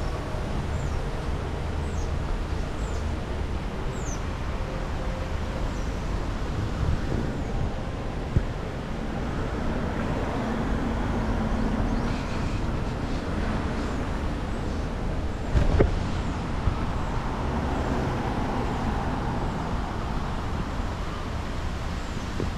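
City street ambience: steady road traffic, swelling slightly about halfway through as a vehicle passes. A few faint high chirps in the first few seconds, and a sharp knock about two thirds of the way in.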